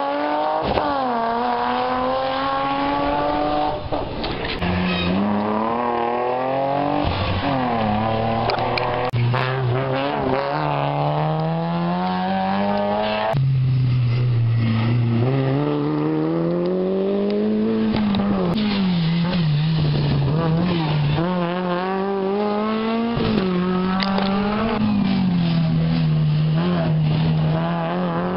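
Rally cars at full throttle, one after another, each engine climbing in pitch and dropping back at every gear change, with a sudden switch to another car about halfway through.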